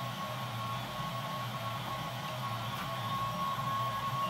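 Home-built SmartRap-style 3D printer running a print: a steady mechanical whirr with a thin, steady high whine.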